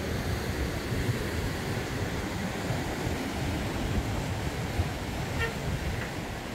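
Steady road and engine noise of a moving car, heard from inside the cabin, with a brief faint tone about five seconds in.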